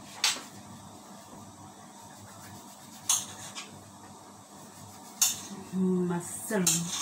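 A kitchen knife clicking sharply against a glass cutting board while slicing mushrooms, a few separate clicks several seconds apart.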